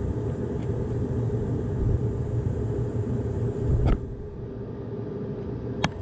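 A steady low rumble of background machinery, with a sharp knock about four seconds in and a click near the end from hand work on the car battery's terminal as it is connected.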